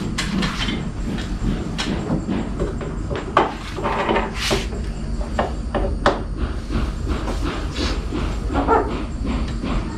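Irregular knocks, taps and scrapes as a refrigerator's metal cabinet is pushed and shuffled by hand into place against a wall. A steady low hum runs underneath.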